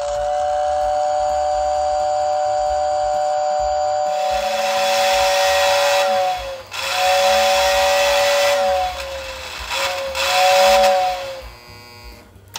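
Lionel 2046W whistle tender's motor-driven whistle blowing a steady two-note chord for about six seconds, joined by a rushing hiss about four seconds in, then two shorter blasts whose pitch sags as the whistle motor slows.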